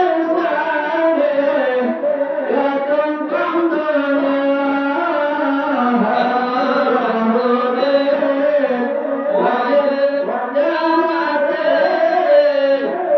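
Music with a wavering, sung or chanted melody: long held notes that glide slowly up and down without a break.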